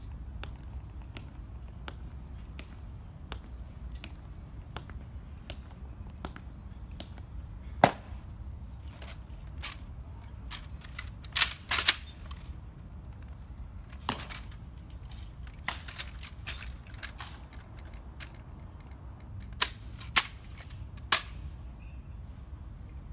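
Footsteps click on the stone plaza at an even pace, then comes a series of sharp snaps and clacks as an M14 rifle is handled and its bolt worked during a guard's rifle inspection. The loudest is a quick cluster about twelve seconds in, and three more come near the end.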